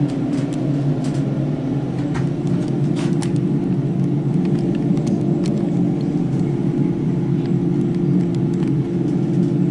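Otis lift car, modernised by KONE, travelling down its shaft: a steady hum and rumble with a constant tone through it and a few faint clicks.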